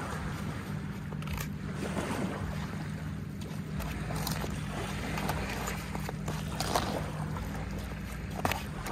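A plastic fork stirring and scraping flaked fish salad on a paper plate, with a few light clicks, over a steady low outdoor rumble.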